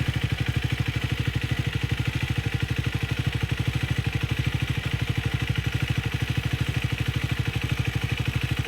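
Triumph Speed 400's single-cylinder engine idling steadily with even exhaust pulses and no revving. At idle it sounds normal; the worn cam-chain tensioner lets the chain guide clatter only when the engine is revved.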